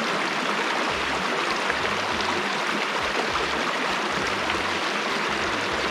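Shallow river water running steadily over rocks in a riffle, an even rushing sound.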